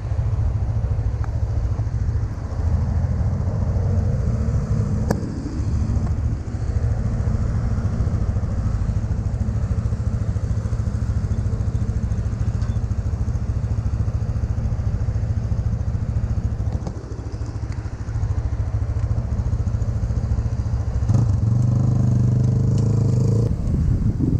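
Wind buffeting the microphone with road and traffic noise while riding a bike on a city street. Near the end a louder steady pitched drone comes in for about two seconds.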